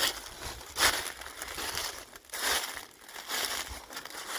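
Footsteps crunching through a thick layer of dry fallen leaves, about one step a second.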